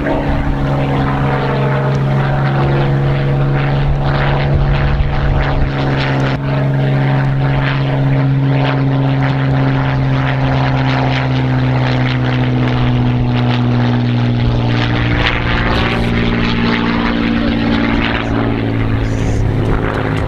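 A single-engine WWII piston fighter droning steadily overhead, engine and propeller at high power, its pitch drifting slowly lower and then shifting as the aircraft passes.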